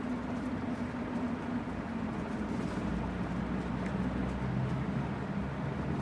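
Encon (Crompton Greaves) Princess ceiling fan running at speed: a steady motor hum under the even rush of air from the spinning blades.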